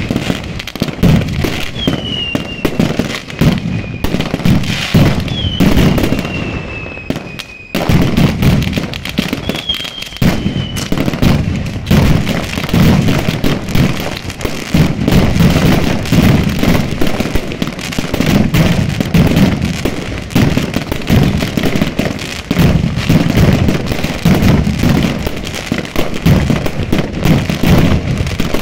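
Mascletà firecrackers going off in a dense, rapid barrage of bangs, with several falling whistles from whistling fireworks in the first ten seconds or so. The bangs dip briefly about seven seconds in, then come back thicker and keep up a continuous rattle.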